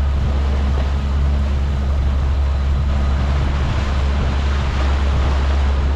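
Suzuki outboard motor running steadily at cruising speed, a constant low drone, with water rushing past the hull and wake.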